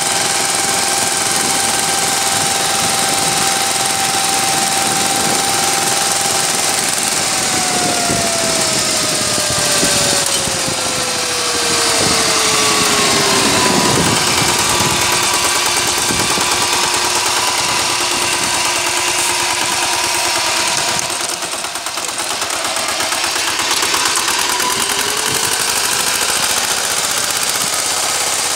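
VST Shakti 130 DI power tiller's single-cylinder diesel engine running as the tiller works the soil. Its pitch holds steady, then slides down over several seconds from about seven seconds in, stays lower, and rises again near the end.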